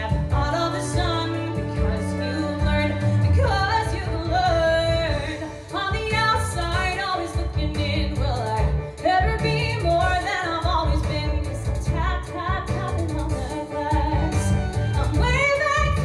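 A woman singing a musical-theatre song live into a microphone, over instrumental accompaniment.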